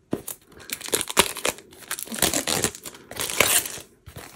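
Crinkly plastic packaging of a diamond painting kit being handled and opened: a run of irregular crackles and rustles.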